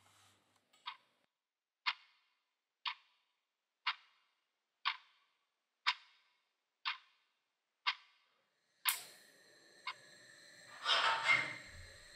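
Quartz wall clock ticking, about one tick a second, eight ticks in all. About nine seconds in the ticking stops and steady kitchen room noise takes over, with a short run of clattering near the end.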